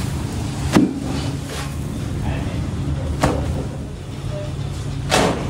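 A flat metal spatula knocks and scrapes on a large paratha griddle three times, about a second in, around three seconds and near the end, over a steady low hum.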